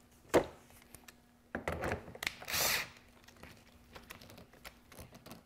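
Light clicks and knocks of a cordless drill and Forstner bit being handled and seated in a plastic concealed-hinge jig's guide, with a sharp click about a third of a second in and a short scraping rustle about two and a half seconds in; the drill motor is not running.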